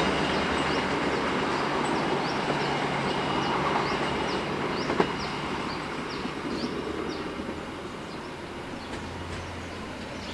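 Passenger train running on the rails, its rumble fading steadily as it moves away. A series of short high chirps sounds through the middle, with one sharp click about halfway.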